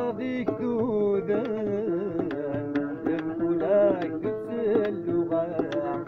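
Music: a plucked string instrument playing a melody with sliding, bending notes.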